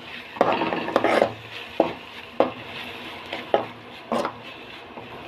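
A metal spoon scraping and knocking against a kadai while stirring onions and ginger-garlic paste frying in oil. There are sharp clacks and scrapes roughly every half second, and they stop about four seconds in.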